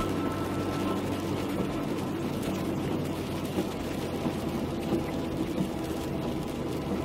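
Steady noise of a car driving on a wet road in rain: a low engine hum under the hiss of tyres on wet tarmac.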